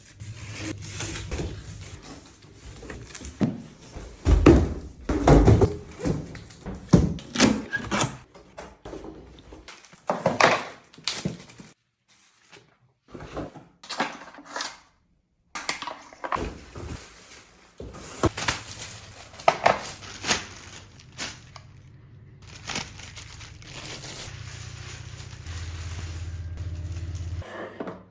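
Irregular knocks, thunks and clicks, as of hard objects being handled and set down, with a steady low hum for a few seconds near the end.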